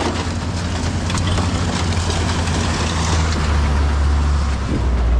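Motor vehicle engine running steadily with a low drone that grows louder near the end.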